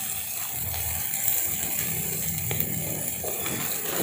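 Goat satay grilling over charcoal: a steady sizzling hiss with a low hum under it and a few faint crackles.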